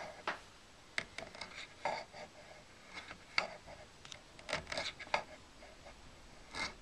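Faint, scattered scrapes and clicks of a hand-held metal tool being worked against a wax blank held in a drill chuck, at irregular times.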